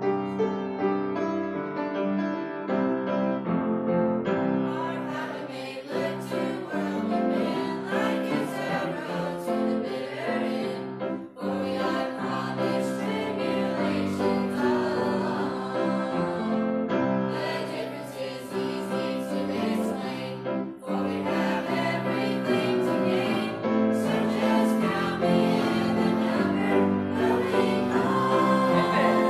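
A small group of young people and children singing a gospel song together, with two short breaks between phrases, about a third and about two-thirds of the way through.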